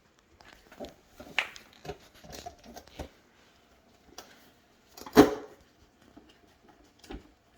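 Scattered knocks, clicks and light clatter from hands and tools working on a dishwasher being installed, with one louder thump about five seconds in.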